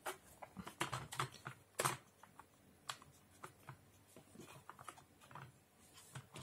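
Hard plastic clicks and clatter as a vintage Transformers Optimus Prime toy trailer is opened and its hinged halves are folded out flat, with loose parts inside knocking about. A quick run of sharp clicks comes about a second in and a single sharp one near two seconds, then lighter scattered taps.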